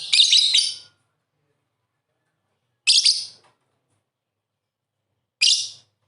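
Lovebird giving three short bursts of high-pitched chattering calls, each under a second long and about two and a half seconds apart, the first the longest.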